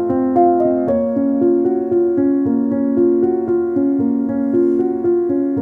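Background music on a keyboard: a gentle piano-like melody of held notes that change every half second or so.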